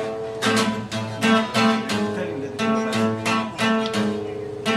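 Acoustic guitar strumming chords in a steady rhythm, about three to four strokes a second: the instrumental intro of a song before the vocals come in.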